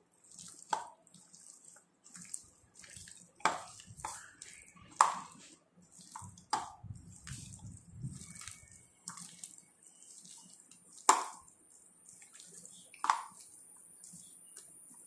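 Wet squelching and smacking of hands kneading raw chicken pieces in a thick spice-and-lemon-juice marinade in a bowl, irregular squishes every second or two with a few louder smacks.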